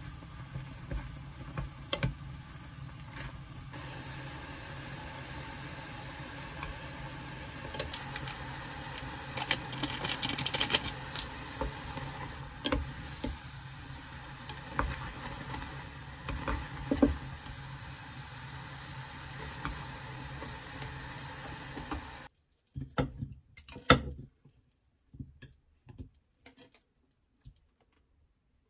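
Buldak instant noodles being cooked and stirred in a pot on a gas stove: a steady hiss of boiling water, with chopsticks clicking and scraping against the pot, then stirring through the sauce. About 22 seconds in the steady noise cuts off, leaving a few light clicks as the noodles are lifted onto a plate.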